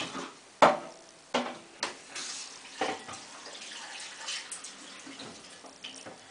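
Plastic detergent drawer of a washing machine being lifted out and handled: about five sharp plastic knocks and clatters in the first three seconds, with a splashy rush, like water pouring, for a couple of seconds after.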